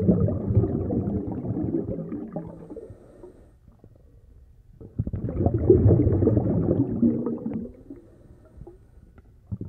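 Muffled underwater sound of churning, gurgling water, dull and deep with no high end. It swells twice, with a lull in between.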